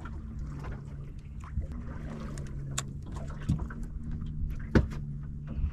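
Electric trolling motor humming steadily while pushing the boat at a slow troll. Scattered light clicks and knocks sound over it, the sharpest a little under five seconds in.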